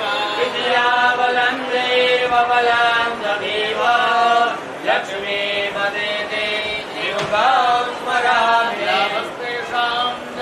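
A voice chanting Hindu puja mantras in a singsong way, holding long notes with short rising glides between phrases.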